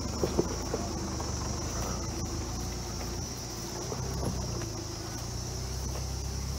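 LDV T60 ute's engine running low and steady as it crawls over a rutted dirt track, under a steady high drone of insects. A few short knocks from the vehicle come in the first second, with another about four seconds in.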